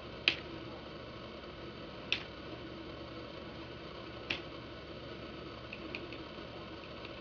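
Three sharp clicks about two seconds apart, then a few faint quick taps near the end: keys pressed on a laptop keyboard to restart the machine and get into its BIOS. A steady hum runs underneath.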